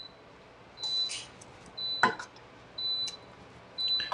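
Portable induction cooktop beeping, short high beeps about once a second: its no-pan warning, set off because the pan has been lifted off the burner. A single knock about two seconds in.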